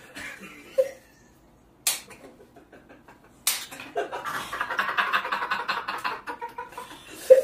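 Two sharp knocks, then several men laughing hard in rapid pulsing bursts for about three seconds.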